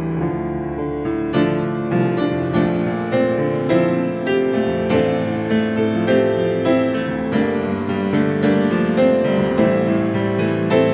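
Slow instrumental piano music. A steady flow of single struck notes that ring and fade, growing fuller about a second in.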